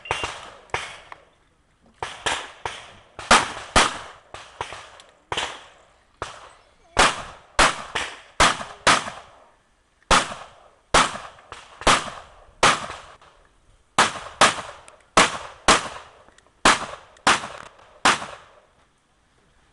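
Handgun shots fired in quick pairs and short strings, with pauses of about a second between groups while the shooter moves between shooting positions on a practical shooting stage. The shooting stops about eighteen seconds in.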